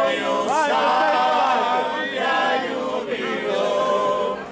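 A group of men singing a song together in unaccompanied harmony, several voices holding long notes, with a short break between phrases near the end.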